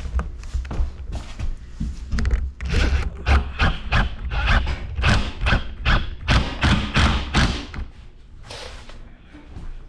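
Hammer blows on wooden wall framing: a fast, uneven run of knocks that speeds into steady strikes about three a second through the middle, then eases off near the end.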